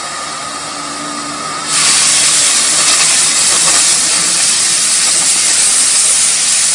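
Harris 62-5F injector cutting torch burning propane: the flame hisses with a faint steady whistle, then about two seconds in the hiss jumps much louder and holds steady as the cutting oxygen jet opens and the torch cuts through 2-inch steel.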